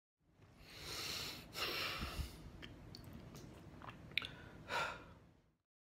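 Faint close-up breathing, three soft breaths, with a few small clicks and a sharper click a little after four seconds in.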